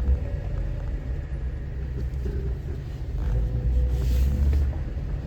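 Off-road vehicle engine running at low speed with a steady low rumble, growing louder about three seconds in.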